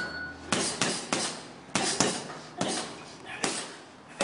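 Boxing gloves landing on a 550 lb heavy bag: about seven heavy punches in an uneven rhythm, each a sharp thud.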